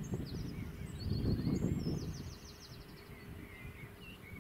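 Small birds singing in quick chirps and rapid trills, over a low, uneven rumble that eases about two seconds in.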